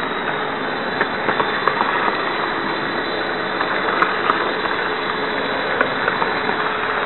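A Märklin model train running on its track, heard from a camera riding on the train: a steady rattling rolling noise with scattered short clicks and a faint steady hum.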